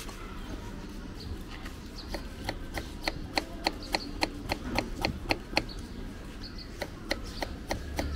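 Small knife chopping a cucumber on a wooden cutting board, the blade tapping the wood in a quick even run of about three strokes a second. The run starts about two seconds in and thins out after the middle.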